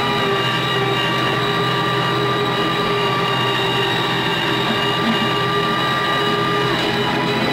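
Antonio Carraro 10400 TTR tractor running steadily under load while driving a BCS Rotex NT R6 mower, heard from inside the cab: an even engine drone with a high, steady whine over it. One of the whining tones drops out near the end.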